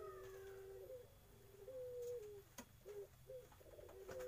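Young Iraqi puter dove (a domestic ringneck-type dove) cooing: a run of low, pitched coos, each stepping between two notes, with a single sharp click about two and a half seconds in.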